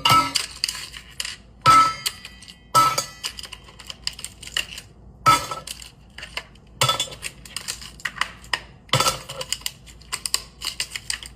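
Ice cubes clattering and clinking in a kitchen, an uneven run of sharp clinks with short bright ringing.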